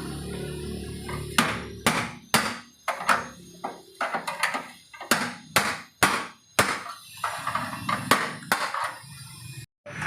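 Hammer striking sheet metal in irregular blows, roughly two a second: panel beating on a car body damaged in a collision.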